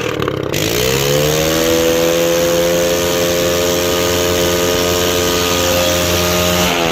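Single-cylinder motorcycle engine running without its silencer. It is revved up about half a second in, held at steady high revs, then drops back near the end. The engine burns oil and smokes, which the mechanic puts down to worn piston rings.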